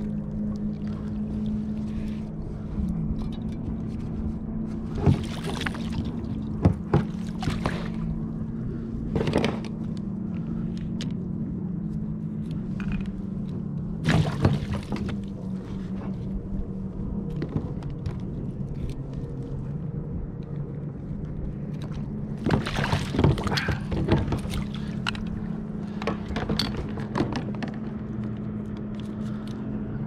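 A netted wiper (striped bass–white bass hybrid) thrashing in a landing net at the side of a kayak: splashes and knocks against the hull come in clusters several times. A steady low drone runs underneath throughout.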